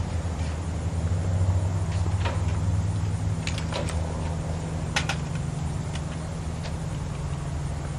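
An engine running steadily at a low hum, a little louder between about one and three seconds in, with a few short, sharp clicks over it.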